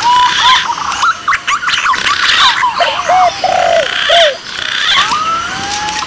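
Bird-lure recording of spotted dove (tekukur) and green pigeon (punai) calls answering each other: phrases of whistled notes that glide up and down, repeating with short gaps.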